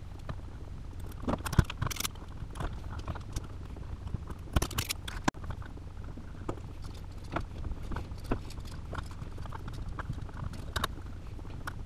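Scattered clicks and small metallic clinks of pliers working electrical wire and a new wall outlet as the wire is stripped, bent and hooked onto the outlet's screw terminals, with a sharp click about five seconds in, over a low steady hum.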